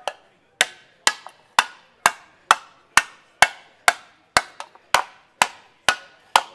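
A mallet strikes aluminium sheet over a wooden block, about two blows a second in an even rhythm, each a sharp knock with a short metallic ring. The blows are shrinking and forming the flat sheet into a curved panel.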